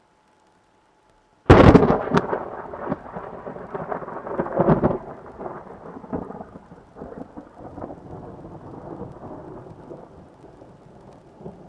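Thunder from a nearby lightning strike: about a second and a half in, a sudden sharp crack, then a rolling rumble with a few more loud peaks over the next few seconds, slowly fading away.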